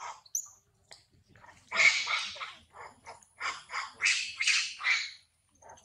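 Macaque screaming in a string of short, harsh cries: a loud cluster about two seconds in, then a run of cries that stops shortly before the end.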